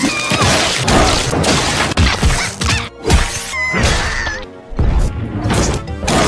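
Cartoon soundtrack: background music with several sudden crash and impact sound effects.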